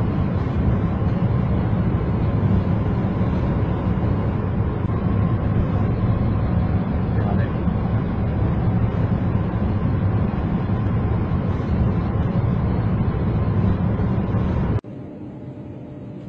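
Steady, loud running noise of a high-speed train in motion, a low rumble with a hiss over it. It cuts off suddenly about 15 seconds in, leaving a quieter steady hiss.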